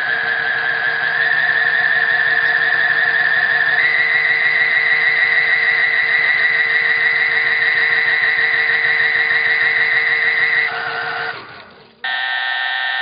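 Washing machine motor whining steadily, stepping up in pitch twice as it speeds up, then winding down and stopping about eleven seconds in. About a second later a harsh buzzer starts.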